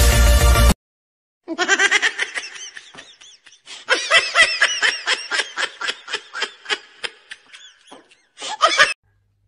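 Electronic music cuts off within the first second. Then a small black-and-tan dog screams in a rapid string of short, high-pitched yelps, each rising and falling in pitch, with a brief break about two seconds in and a last short burst near the end.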